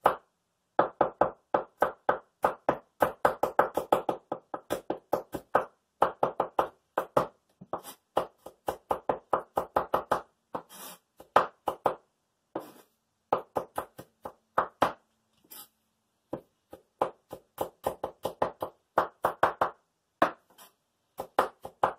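Kitchen knife dicing garlic cloves on a wooden cutting board: quick, sharp chops, about five a second, in runs of a few seconds broken by short pauses.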